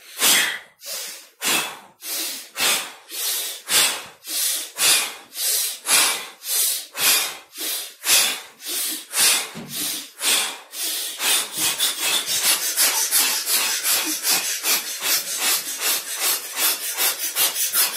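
A man blowing out hard through the mouth again and again, as if to put out a distant candle, in a forceful breathing exercise. The blows come a little under twice a second, then quicken to about three a second from about eleven seconds in.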